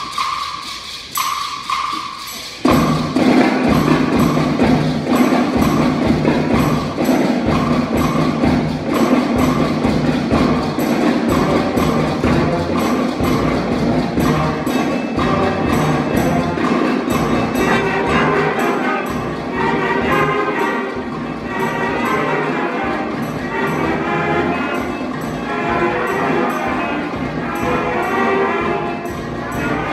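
School concert band playing. A percussion instrument taps a steady beat alone for the first couple of seconds. Then, nearly three seconds in, the whole band comes in with clarinets, brass and percussion, and plays on over a steady percussion beat.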